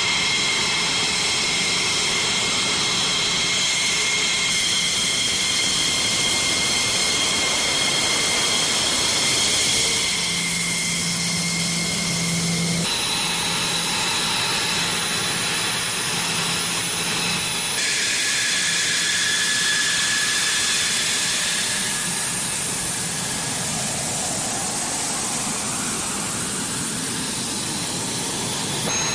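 Fighter jet engines running at low taxi power: a steady rushing noise under a high, even whine. The whine jumps abruptly to a new pitch several times.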